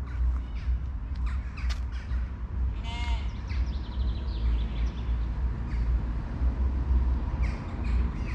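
A single short, harsh, crow-like bird call about three seconds in, over a steady low rumble and a few scattered light clicks.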